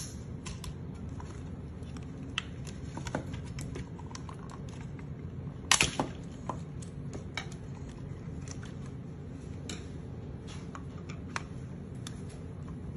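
Scattered light clicks and taps of a transforming robot figure's legs being handled, with the loudest pair of clicks about six seconds in, over a low steady hum.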